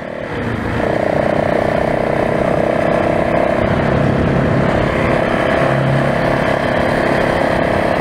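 Enduro motorcycle engine running steadily while riding along, a constant drone that fades in at the start.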